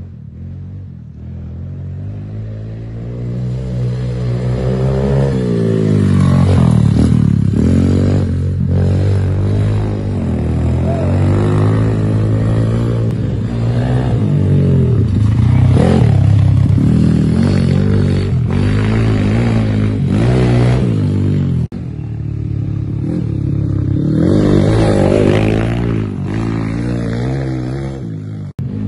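Dirt bike engine revving, its pitch rising and falling again and again as the rider works the throttle. It grows louder as the bike approaches and passes, drops out briefly about 22 seconds in, then revs up again.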